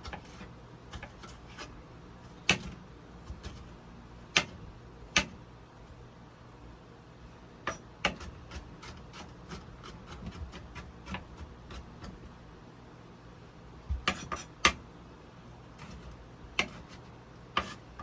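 Kitchen knife cutting a bell pepper on a cutting board: irregular knocks of the blade on the board, a few heavy single chops, then a run of lighter, quicker taps in the middle and a short cluster of chops near the end.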